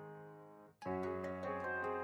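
Background instrumental music fades down, cuts out briefly a little under a second in, then starts again at full level.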